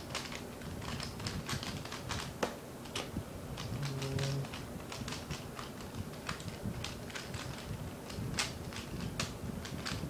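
Fast clicking and clacking of a Zhanchi 3x3 speedcube's layers being turned quickly by hand, with one sharper tap about two and a half seconds in as the solve is finished and the timer is stopped.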